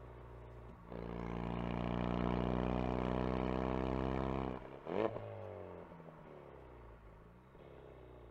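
Ford Focus RS engine, heard from inside the cabin, running quietly and then pulling hard under acceleration from about a second in, its note rising steadily. The note cuts off sharply with a single loud crack, after which the revs fall away as the car slows.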